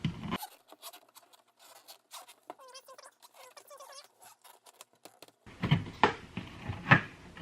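Light clicking and scratching as the RV door window's glass and trim ring are worked apart, with a brief squeak in the middle. Louder knocks and taps from about five and a half seconds in.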